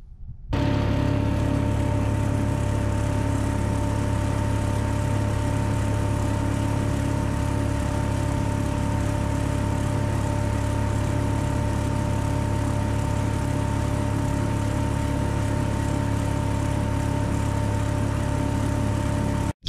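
Boat's outboard motor running at a steady throttle, one unchanging engine note over wind and water noise. It cuts in suddenly about half a second in and stops abruptly just before the end.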